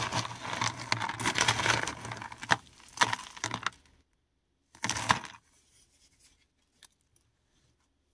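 Paradichlorobenzene mothball tablets being crushed by hand: a dense crunching and crackling with a few sharp cracks, which stops about four seconds in. One more short crunch follows about a second later, then a few faint ticks.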